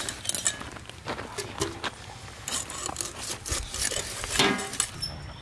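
Hilsa fish being scaled and cut against upright bonti blades: irregular rasping scrapes of fish on steel, with small clicks and knocks.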